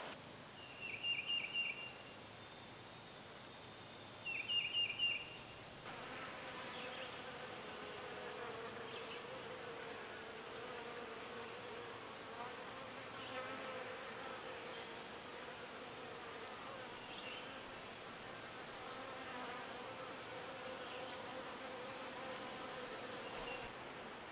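Two short bursts of bird song, each a quick run of repeated high notes, about one and four seconds in; then, from about six seconds in, a flying insect buzzing steadily, its hum wavering slightly in pitch.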